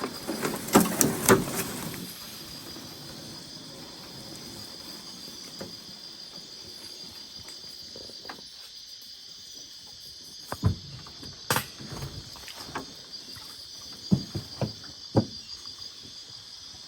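Steady high-pitched insect chorus, with a few knocks in the first couple of seconds and scattered short taps later on.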